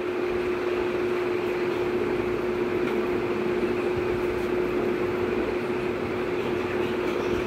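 An electric motor running: a steady hum with one constant tone over an even rushing noise.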